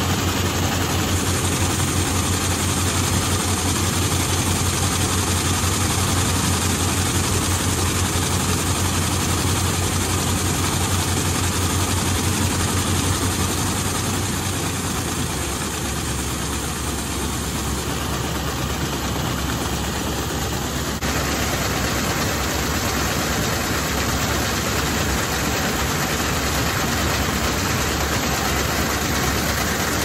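Combine harvester's engine running steadily as its unloading auger pours threshed wheat grain out of the spout, a continuous low hum under an even rushing noise.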